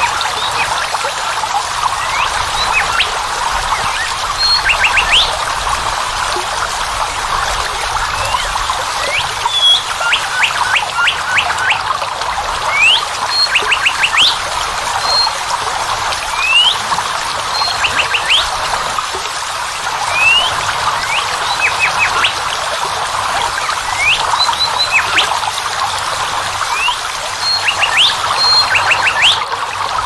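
Waterfall water rushing steadily, with birds chirping over it all the while: quick rising whistles, short high notes, and now and then a fast run of three or four chirps.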